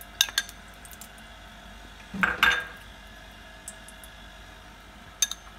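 Kitchen dishes and utensils clinking: a few light clicks, and one louder knock with a brief ring about two seconds in.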